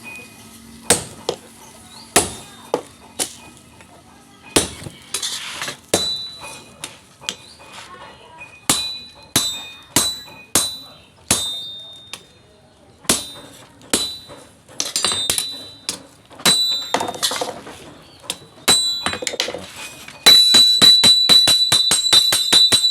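Hammer blows on steel, struck one at a time at an uneven pace, some with a bright ring. Near the end they become a louder, fast run of about five ringing blows a second.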